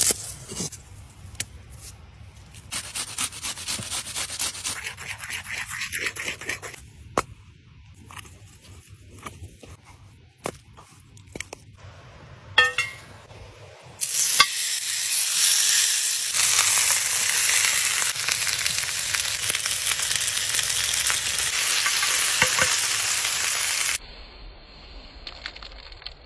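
A knife chops garlic on a wooden board in quick, repeated strokes. About halfway through, a bone-in steak is laid on a hot cast-iron grill pan and starts sizzling loudly and steadily. The sizzle stops suddenly near the end.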